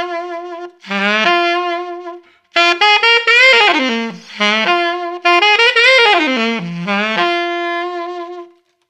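Solo alto saxophone playing a blues phrase: a short low note scooped up into a held major third, twice, then two longer runs that fall in pitch and settle on held notes.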